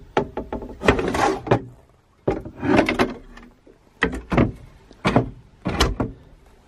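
A loose train display panel being handled and shifted, giving a series of knocks, clunks and rattles in several bursts.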